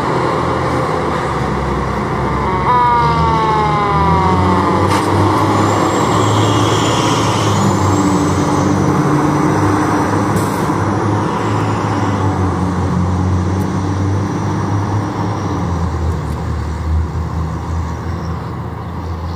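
Fire trucks pulling out on an emergency call, their diesel engines running loud and steady. A siren falls in pitch about three seconds in, with siren sounds continuing faintly over the engines.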